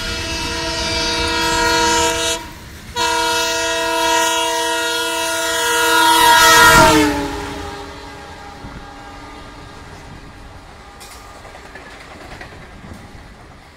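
WDM 3A diesel locomotive horn sounding two long blasts, the second falling in pitch as the locomotive passes about seven seconds in. After that the rolling clatter of the passenger coaches and freight wagons goes on, quieter.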